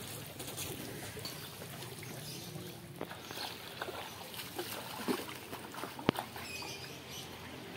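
Open-air ambience at a fishing pond: a steady low hum with faint, distant voices now and then, and one sharp click about six seconds in.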